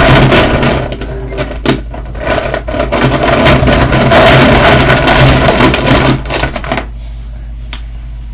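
Many small plastic toy animal figures clattering and rattling against each other and the plastic bin as hands dig through them. The dense clatter stops about seven seconds in.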